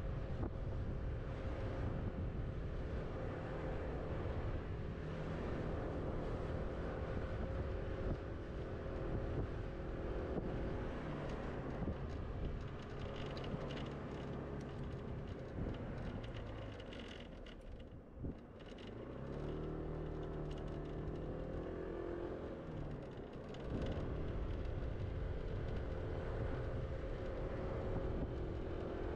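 A scooter's motor runs steadily as it rides along a street, with road and wind rumble. About halfway through it eases off and goes quieter for a few seconds, with a single light knock, then picks up again, its hum shifting in pitch.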